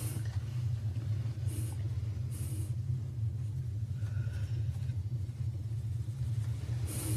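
A steady low rumbling drone, with short hissing bursts about a second and a half in, again near two and a half seconds, and near the end.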